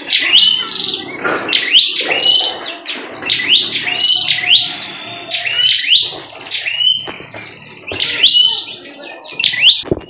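Prinia (prenjak) singing hard, a rapid run of loud, sharp chirps repeated two or three times a second. This is the steady 'gacor' song of a bird in full voice.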